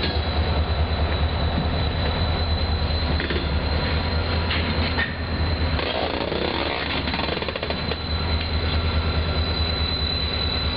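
Diesel freight locomotives rolling slowly past, their engines making a heavy low rumble over a steady high-pitched wheel squeal from flanges on the rail. About halfway through, a brief wavering sound rises and falls over the rumble.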